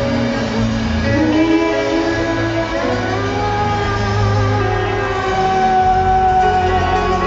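Live band music played loud through a concert PA, heard from within the audience in a large hall, with long held notes.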